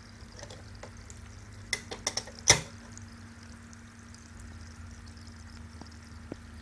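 A fan running with a faint, steady low hum. A quick cluster of sharp clicks comes about two seconds in, ending in one louder knock.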